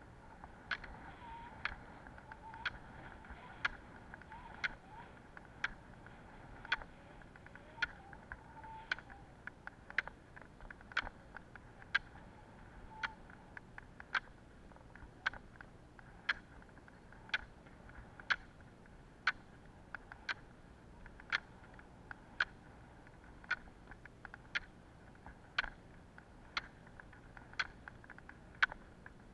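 Roller-ski pole tips striking asphalt, a sharp click about once a second in an even rhythm, over the faint steady hiss of the wheels rolling on the road.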